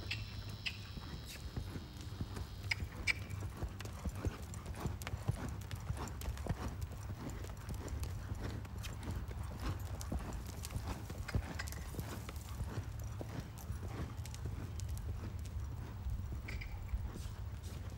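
Hoofbeats of a big paint gelding cantering on arena sand: a steady run of three-beat footfalls over a low, constant rumble.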